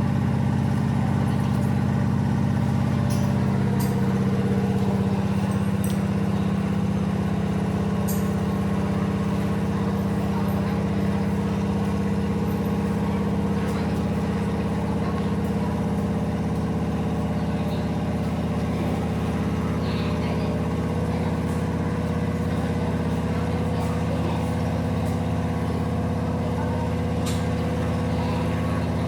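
Jump plane's engine running with a steady, even drone, heard from inside the cabin.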